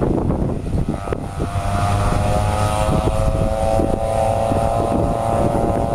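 Racing vintage snowmobile engines running at high revs, a steady buzzing whine that comes in about a second in and climbs slightly in pitch as the sleds run.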